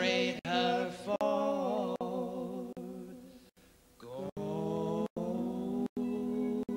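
A man's wordless singing into a close microphone, sliding up and wavering in pitch. After a short lull about three seconds in, a steadier held note follows. The sound drops out briefly several times at fairly even spacing.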